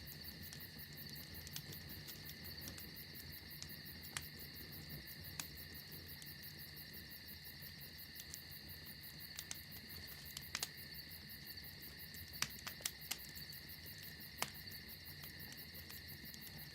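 Crickets chirring steadily at night, with the sharp pops of a crackling campfire here and there.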